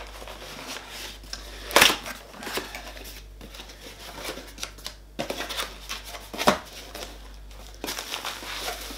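Small cardboard box being pulled open by hand: irregular rustling and scraping of cardboard flaps and packing, with two louder sudden tearing sounds about two seconds in and at about six and a half seconds.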